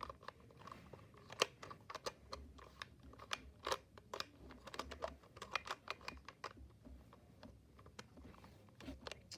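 LEGO plastic pieces clicking and knocking as the tiles of a homemade LEGO sliding puzzle are pushed about: faint, irregular light clicks with a few sharper knocks.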